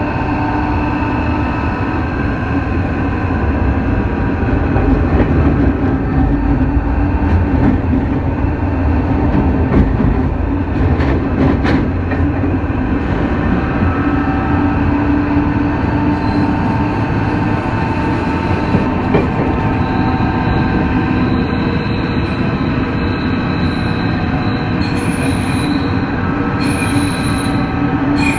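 Tokyo Metro 03 series chopper-controlled subway car running, heard from inside the car: a steady rumble of wheels and motors with steady hums. A few clicks come about ten to twelve seconds in, and high whistling tones come and go in the last third.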